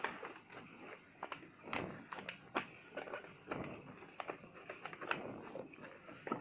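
A sheet of paper being folded and pressed flat by hand: faint, irregular crinkles, rustles and small taps.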